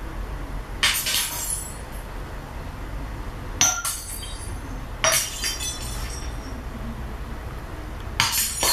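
Glass-breaking sound-effect recording played back through a Sony SS-H12 loudspeaker as a sound test: four separate crashes of shattering glass with tinkling shards, about a second in, near the middle twice, and near the end.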